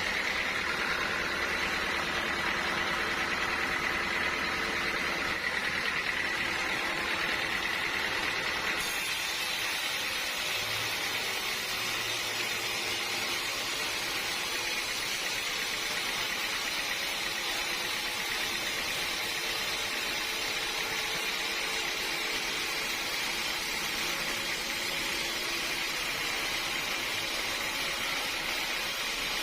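Sawmill machinery running steadily, an even mechanical noise with a faint high whine that changes abruptly about nine seconds in.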